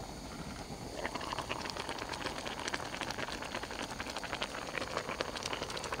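Hotpot broth bubbling and crackling in a stainless steel pot over a gas single burner. The steady burner hiss is joined about a second in by dense, irregular popping from the boil once the lid is off. The hotpot is at a full boil and cooked through.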